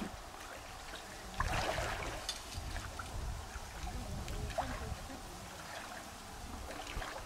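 Shallow water splashing and sloshing around a person's legs as they wade, in irregular bursts, the loudest about a second and a half in.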